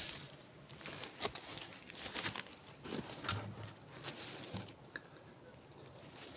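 Close rustling and scraping over small stones and grass, with irregular small clicks and crackles.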